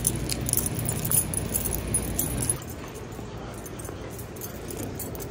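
Small metal pieces jingling and clinking in quick clusters, like keys jangling while someone walks, over the low hum and handling rumble of a handheld phone. The jingling stops about two and a half seconds in and it goes quieter.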